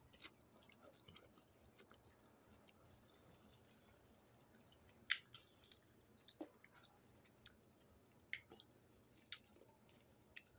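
Near silence broken by faint, scattered small wet clicks and smacks of someone eating ramen noodles.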